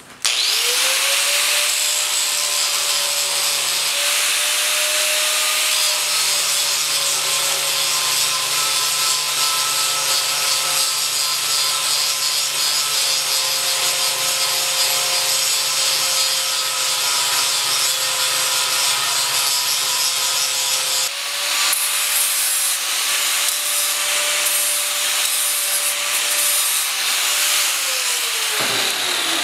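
Angle grinder starting up and grinding a steel piece flat, the motor's steady whine under a loud grinding hiss. It eases off briefly about three-quarters of the way through, then the grinder is switched off and its whine falls as it winds down near the end.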